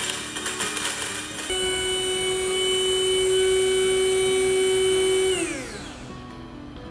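The built-in mill of a Zojirushi EC-SA40 coffee maker grinding coffee beans: a rough grinding noise at first, then about a second and a half in the motor settles into a steady whine. About five seconds in, the motor cuts off and spins down with a falling pitch.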